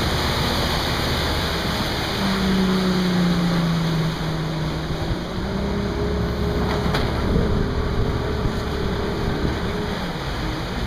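Fast river passenger speedboat under way: its engine running with a steady hum over the rush of wind and water past the hull.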